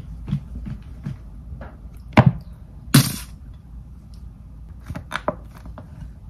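Kitchen knife chopping on a cutting board: a run of evenly spaced knocks, then a couple of louder knocks, a short scrape about three seconds in, and a few more knocks near the end.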